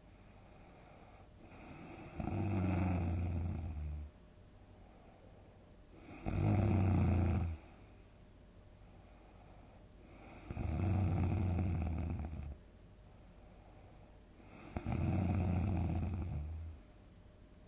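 A person snoring heavily in deep sleep: four loud, deep snores about four seconds apart, each lasting one and a half to two seconds, with quiet breathing between them.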